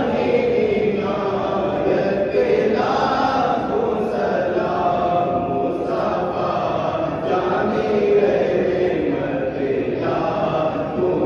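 Men's voices chanting an Islamic prayer recitation in a mosque, a continuous melodic chant that rises and falls in pitch.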